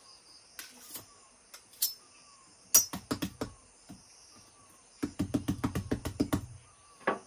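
A large knife chopping into a whole jackfruit on a wooden table: a few sharp chops about three seconds in, then a quick run of about a dozen chops with a dull thud, and one last chop near the end.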